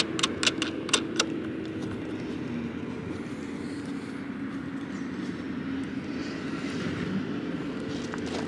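A handful of sharp clicks and knocks in about the first second as the kayak fish-finder mount's knobs are tightened and the bracket is handled. Under them is a steady low mechanical hum that goes on throughout.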